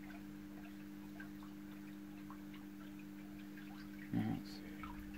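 Quiet room tone: a steady low electrical hum with faint, irregular small ticks scattered through it, and a brief low murmur of voice about four seconds in.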